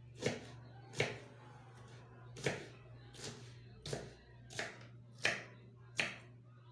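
Kitchen knife chopping a green vegetable on a wooden cutting board: about eight sharp knocks, spaced unevenly at roughly one a second.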